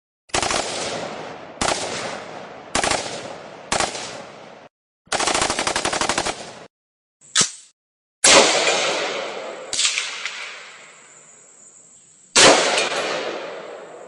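Battle sound effect of gunfire and explosions. It opens with four heavy single shots, each with a fading echo. A sustained burst of rapid machine-gun fire follows, then a short sharp crack and three large blasts with long fading tails. A steady high whine runs on after the first big blast.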